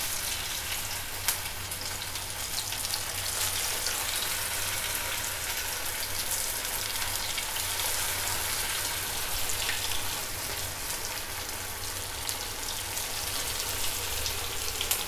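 Sabudana vadas frying in hot oil in a pan, a steady crackling sizzle.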